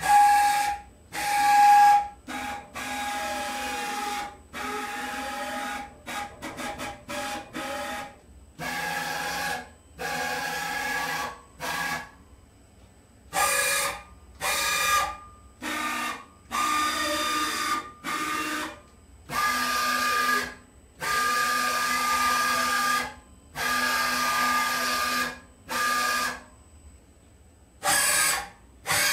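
Axis drive motors of a DIY CNC milling machine moving the axes in short jogs: a whining tone that starts and stops about twenty times, each move lasting a second or so, with some moves sweeping down and back up in pitch as the axis slows and speeds up.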